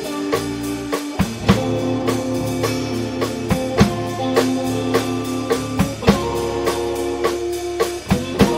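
Instrumental rock band playing: an electric guitar melody in long held notes over electric bass and a drum kit keeping a steady beat.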